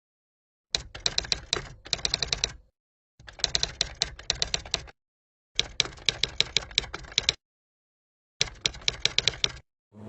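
Typewriter-style keys clacking in four separate bursts, about six keystrokes a second, each burst lasting one to two seconds, with dead silence between them. This is an added typing sound effect.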